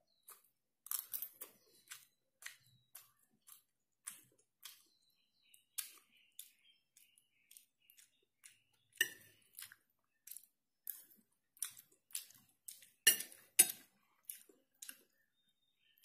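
Metal spoon and fork clinking and scraping on a ceramic plate while eating rice and fried chicken: irregular short clicks a few times a second, loudest about thirteen seconds in.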